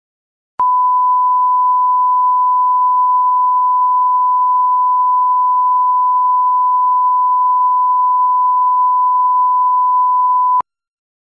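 A steady pure 1 kHz sine tone, loud and unchanging, switching on with a click about half a second in and cutting off with a click ten seconds later.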